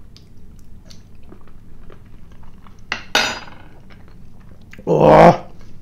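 Light clinks and taps of cutlery on a plate while eating, with two louder sudden sounds: one about three seconds in and a louder one about five seconds in.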